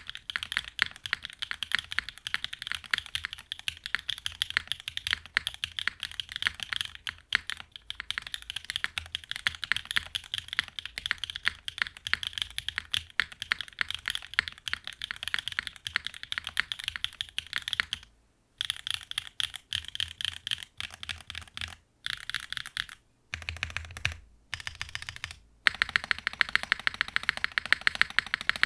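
Fast, continuous typing on a mechanical keyboard fitted with pre-lubed Gateron Mars linear switches (POK stems, long-pole bottom-out), with GMK keycaps on an aluminum plate in a gasket-mount board: a dense stream of clacks, broken by a few short pauses in the last ten seconds.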